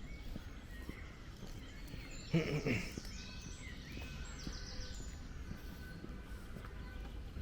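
Small birds chirping and trilling in the trees over steady outdoor ambience, with faint footsteps. About two seconds in comes one short, loud call, the loudest sound here.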